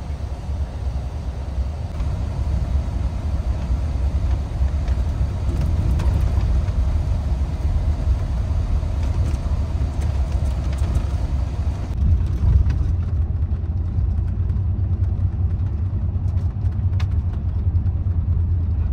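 Steady low rumble of engine and road noise inside the cabin of a moving bus. The higher hiss thins out about twelve seconds in.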